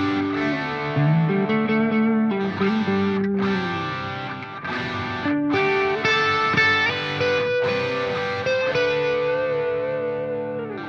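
Music led by a distorted electric guitar playing long held notes that slide up and down in pitch.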